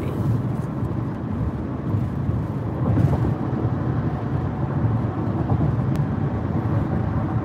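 Car driving at highway speed, heard from inside the cabin: a steady low rumble of tyre and engine noise.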